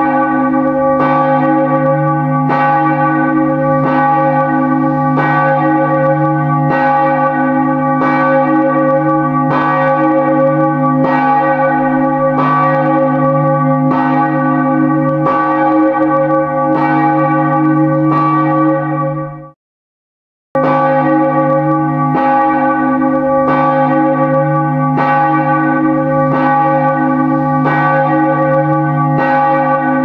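Church bell tolling steadily, struck about once a second, each stroke ringing on into the next. About two-thirds of the way through it cuts out for about a second, then starts again.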